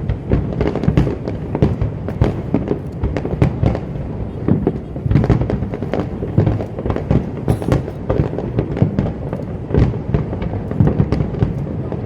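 Aerial fireworks going off in a rapid, continuous barrage: many sharp bangs and deep booms a second, overlapping with crackle.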